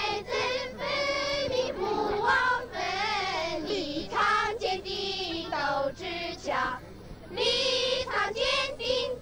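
Children singing a song together, in held sung notes and short phrases.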